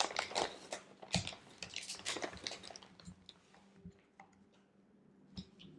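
Close-miked biting and chewing of a macaron: a run of small crisp crunches and mouth clicks, thinning out after about three seconds.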